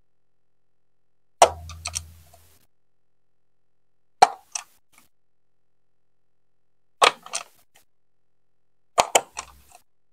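Plastic Duplo-style building blocks and track pieces being set down and pressed onto a studded baseplate, four times: each a sharp plastic clack followed by a couple of smaller clicks.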